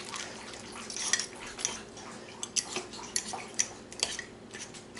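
Two metal forks clicking and scraping against the inside of a slow cooker, shredding tender cooked chicken thighs in their juices, in an irregular run of short clinks.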